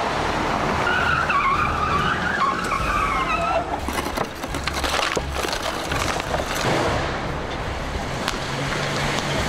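Car tyres squealing as a car skids across paving, with its engine running underneath. The squeal wavers and fades out after a few seconds, leaving engine noise mixed with scattered knocks and clatter.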